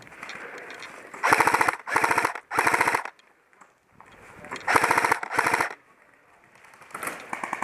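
Airsoft rifle firing on full auto in rapid bursts: three quick bursts about a second in, two more near the middle, and a last one near the end.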